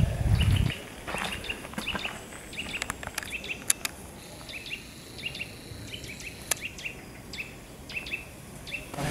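Small birds chirping: many short, falling chirps repeated throughout, with a few sharp clicks. It opens with a brief low rumble.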